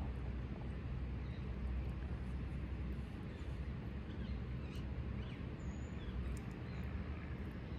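Outdoor ambience: a steady low rumble and hiss, with a few faint bird chirps in the middle and near the end.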